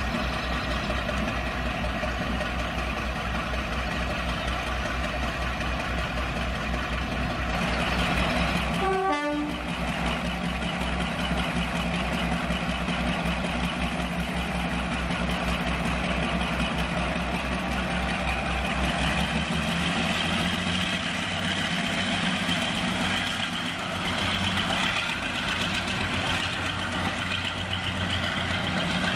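Class 42 'Warship' diesel-hydraulic locomotive's twin diesel engines running, then opening up with a stronger engine note from about eight seconds in as it pulls away.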